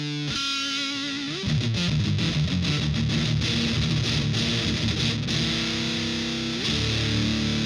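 Electric guitar played through a heavy fuzz pedal: held, distorted notes with vibrato, bent up in pitch about a second and a half in and again near the end.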